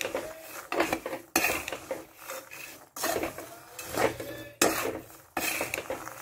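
Spatula stirring raw peanuts dry-roasting in a bed of salt in a kadhai, scraping and rattling against the pan in repeated strokes about once a second.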